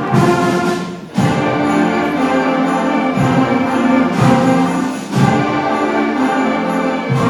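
A middle school ensemble playing a festive piece with sustained chords, sleigh bells jingling along. New chords come in about a second in and again about five seconds in.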